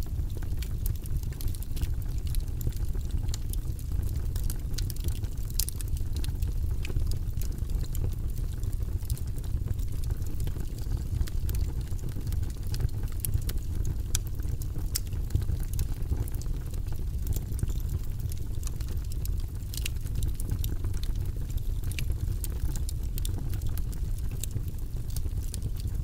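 Wood logs burning in a fireplace: a steady low rumble of flame with frequent, irregular sharp crackles and pops.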